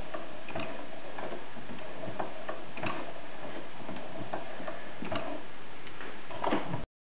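Mechanism of a small Ericsson caloric hot-air engine clicking as its flywheel is turned by hand: irregular sharp clicks about once or twice a second over a steady hiss. The sound cuts off suddenly near the end.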